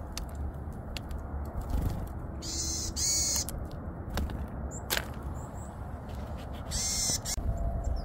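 Varied tits calling in two bursts, one about two and a half seconds in lasting about a second, the other a shorter one near seven seconds, with a few light clicks and a steady low rumble of wind on the microphone.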